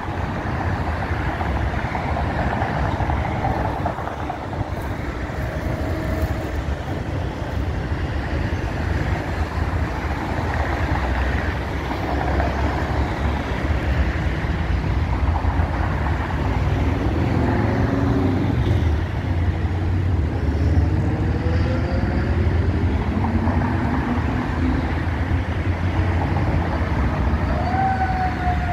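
Steady rumble of freeway traffic and vehicle engines. Near the end a fire engine's siren starts to wail, rising quickly and then slowly falling.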